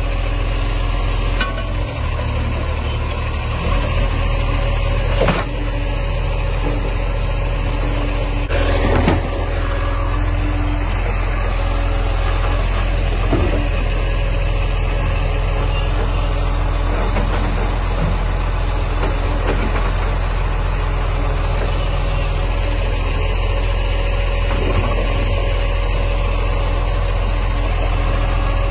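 Side-loading garbage truck's diesel engine running steadily while its hydraulic lifting arm grabs, lifts and empties wheelie bins, with a few sharp knocks from the bins and arm.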